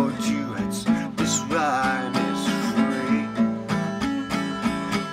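Acoustic guitar strummed in a steady rhythm, playing the chords of a folk-style song.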